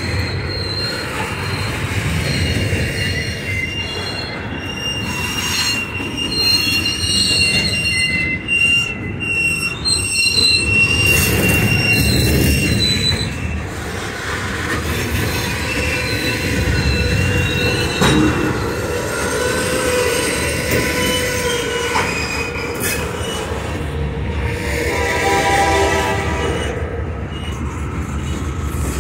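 Freight train of hopper cars rolling slowly past, wheels squealing in thin, steady high-pitched tones that come and go over a continuous rumble and clatter of wheels on rail.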